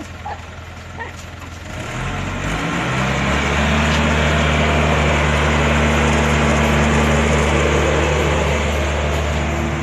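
Excavator's diesel engine revving up about two seconds in, then running steadily at high throttle.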